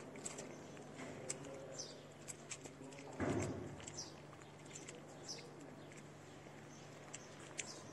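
Kittens chewing wet cat food from a plate, with many small wet clicks and smacks. Short high chirps from birds come now and then, and there is a brief muffled thump a little over three seconds in.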